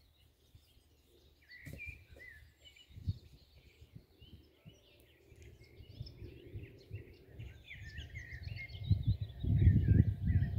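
Small songbirds chirping and singing in a busy stream of short high notes, over a low, uneven rumble of wind on the microphone that grows louder toward the end.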